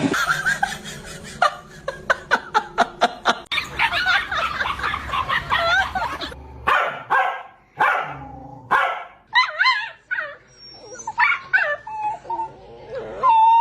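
Dogs barking at each other: a quick run of short sharp barks, then higher yips and whining barks that rise and fall in pitch.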